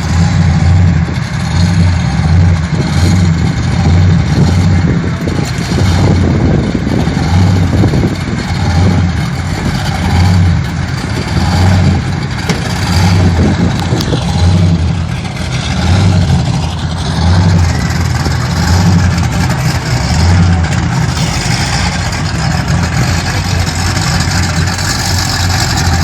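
Engine running steadily with a deep, pulsing rumble and slight rises and falls in level.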